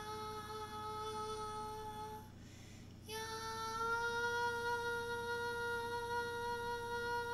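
A woman's voice in 'light language' toning: one long sung note held steady, breaking off about two seconds in, then after a short gap a second long note, slightly higher, that rises a little as it starts and is held steady.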